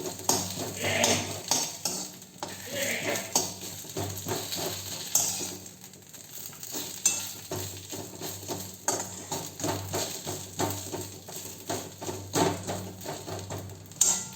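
Thuthuvalai leaves frying in a little oil in a pan, stirred with a spoon: light sizzling with many quick clicks and scrapes of the spoon against the pan as the leaves crisp. A steady low hum runs underneath.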